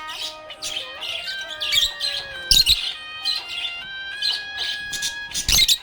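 Budgerigar chirping in short bursts over a melody of background music.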